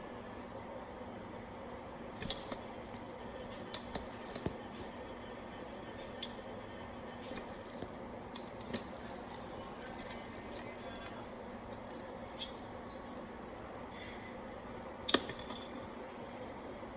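Irregular bursts of rattling and clicking from small hard objects being handled, over a faint steady hum.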